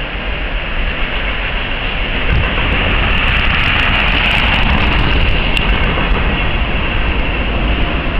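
Refrigerated boxcars of a fast freight train rolling past: a steady rumble of wheels on rail that grows louder about two seconds in, with a few sharp clicks in the middle.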